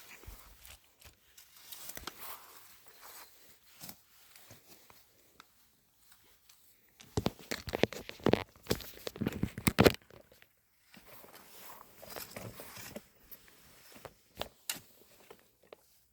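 Rustling and crackling of zucchini plants being handled while picking, with a louder run of crackling and snapping for about three seconds in the middle.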